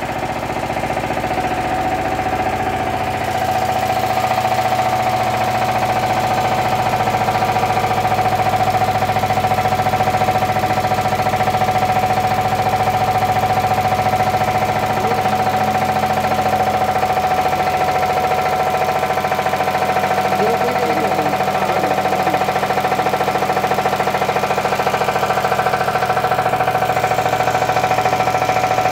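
Four-stroke diesel test-bed engine running steadily under a dynamometer load that is being raised, its speed easing from about 1715 to 1650 rpm. A steady high-pitched tone runs through the engine noise.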